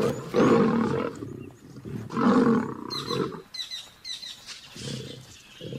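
Two male lions fighting each other, roaring in two loud outbursts in the first three and a half seconds, then shorter, quieter calls near the end.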